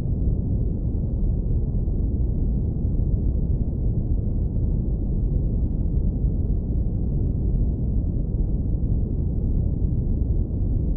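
Deep, steady brown noise filtered down to the low end, a warm even rumble with no high frequencies and no changes.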